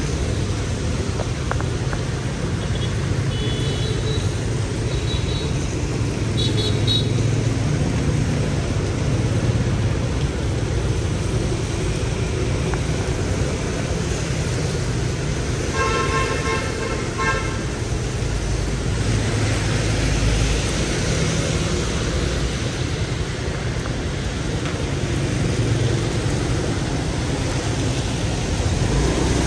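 Steady street traffic with vehicle engines running. A vehicle horn honks for about a second and a half, a little past the middle. A few short high beeps come near the start.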